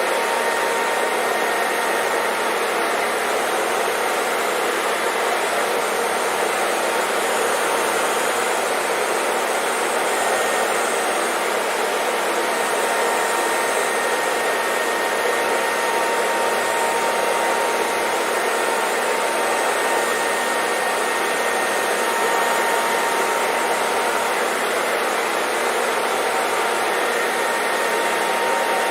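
Hair dryer blowing continuously: a steady, unchanging rush of air with a faint motor whine, used as white noise.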